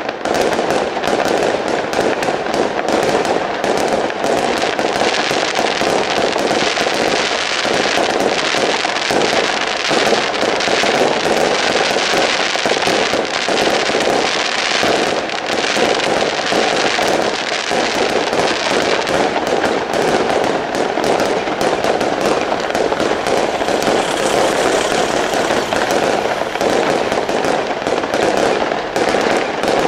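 Fireworks display with many aerial shells bursting at once: a dense, unbroken crackling of countless small reports, steady in loudness.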